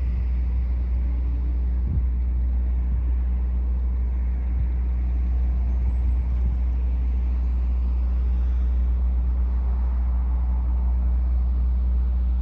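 Steady, loud low rumble of a running engine, unchanging throughout.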